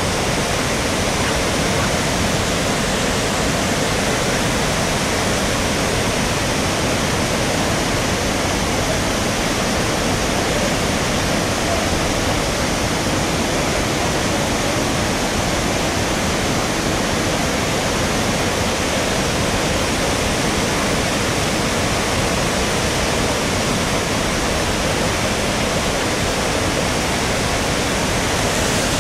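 Floodwater from an overflowing wetland running across a road and pouring over its edge down the embankment: a steady, loud rush of water.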